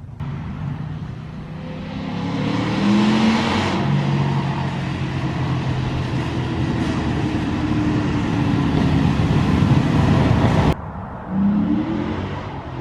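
Ford Mustang GT V8 through long-tube headers, an off-road X-pipe and Corsa Extreme exhaust, accelerating hard: the pitch climbs over the first few seconds, then the exhaust holds loud. Near the end the sound cuts off abruptly, followed by a short second rev.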